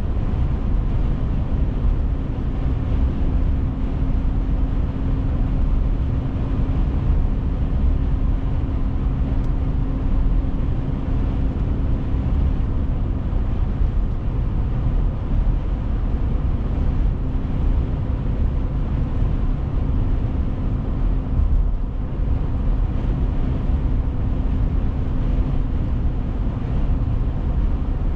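A car driving along a road: steady low road and engine noise with a faint even hum, which fades out for a few seconds about halfway through.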